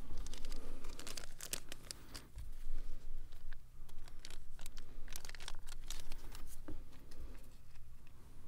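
Clear plastic bag crinkling and rustling in hand as it is opened and the replacement lithium battery is taken out. The crinkling comes in two spells, about a second in and again around five seconds in.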